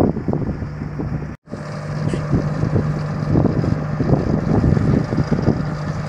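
Diesel engines of asphalt-paving machinery running steadily with a constant low hum. The sound drops out for an instant about a second and a half in.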